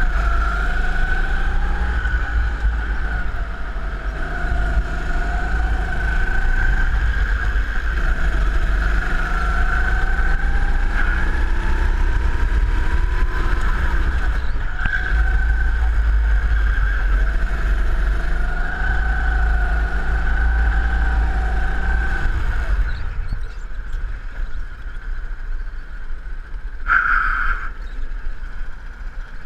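Go-kart engine heard from onboard, its pitch rising and falling as the kart accelerates and brakes around the track, over heavy wind buffeting on the microphone. About 23 seconds in the engine drops to a lower, quieter note as the kart slows into the pit lane, with a brief higher tone near the end.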